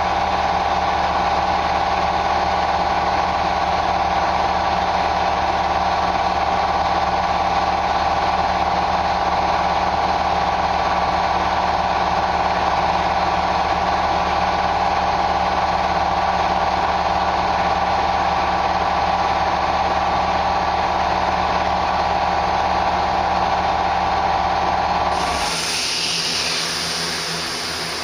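Air compressor running steadily, feeding the spray gun during clear-coat painting; it cuts out suddenly about 25 seconds in, leaving a hiss of air.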